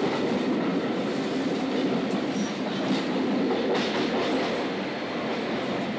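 Hastings diesel-electric multiple unit (Class 203 'Hastings DEMU') running at speed, heard from inside the carriage: a steady rumble of the train in motion. A few sharp clicks of the wheels over rail joints and points come about three and nearly four seconds in.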